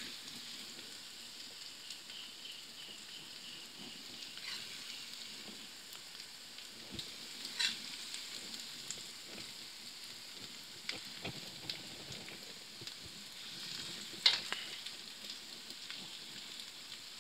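Faint steady sizzle of aloo methi chicken cooking down in a steel pan, with scattered scrapes and clinks of a metal ladle against the pan as it is scooped out; the loudest clink comes about 14 seconds in.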